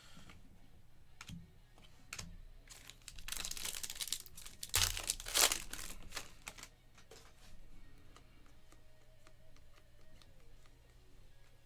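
Foil trading-card pack wrapper crinkling and tearing open, loudest from about three to six and a half seconds in, with light clicks and taps of the cards being handled.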